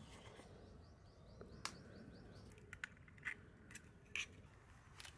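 Faint small-bird chirping in quick repeated notes during the first half. A handful of sharp clicks and taps are scattered through the middle and later part.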